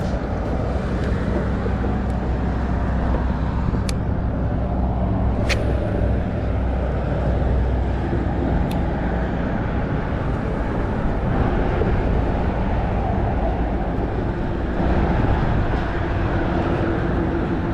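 Steady low engine rumble with wind hiss, from a motor running continuously, with a couple of faint clicks a few seconds in.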